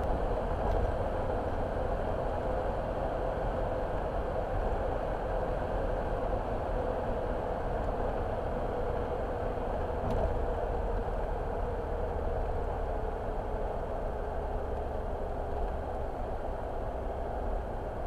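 Car engine and tyre noise heard from inside the cabin while driving, a steady rumble.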